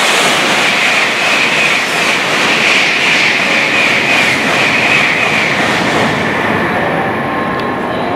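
N700-series Tokaido Shinkansen bullet train running through the station on the through track: a loud, steady rush of wheel and air noise that swells midway and eases off toward the end.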